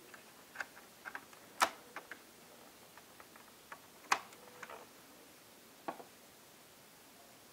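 Irregular small clicks and taps from plastic laptop parts being handled and pried at as the media-button strip of a Sony Vaio F-series laptop is worked loose, with two sharper clicks about a second and a half in and about four seconds in.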